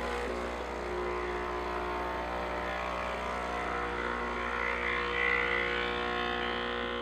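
Breville Infuser espresso machine's vibratory pump running with a steady hum as it pushes hot water through the coffee puck for a double shot, before the espresso starts to flow.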